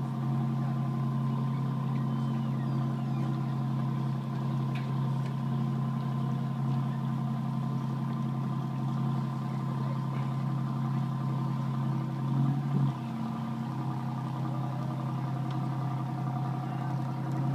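A boat engine idling steadily, a low hum with a few even tones over it. About two-thirds of the way through it swells briefly, then settles a little quieter.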